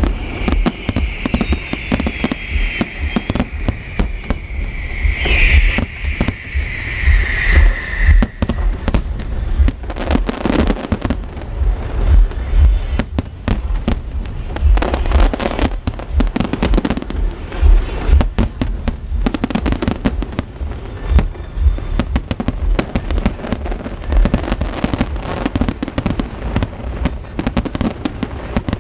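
Aerial fireworks bursting in a dense, continuous barrage: rapid booms and bangs over a steady low rumble. A high wavering whistle-like tone runs through roughly the first eight seconds.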